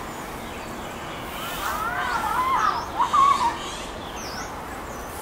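Outdoor park ambience: a steady background hush with a few short, high bird chirps, and a louder vocal call of a few syllables about two to three seconds in.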